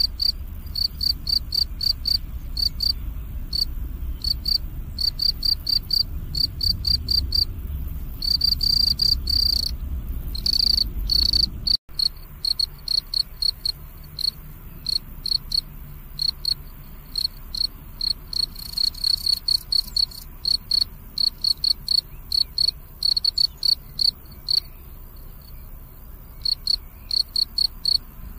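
Field cricket chirping: short, high-pitched chirps repeated several times a second, in runs with brief pauses. A low background rumble underneath stops abruptly at a short dropout a little under halfway through.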